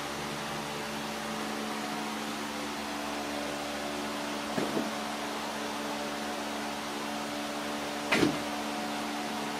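Steady hum of a small electric motor or fan, with two short, louder sounds: one about halfway through and a sharper one near the end.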